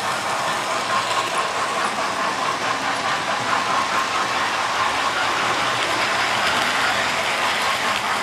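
Model railway trains running on the layout's track: a steady electric motor whine with a fine rattle of wheels over the rails.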